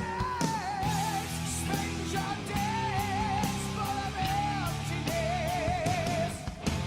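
Rock music with a sung vocal line held with wide vibrato over guitar and a steady drum beat.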